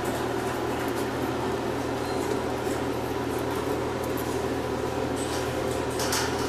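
Steady mechanical hum, like a ventilation fan running, with a short scratchy rustle about six seconds in as a cat grabs and bites a plush toy against wire cage bars.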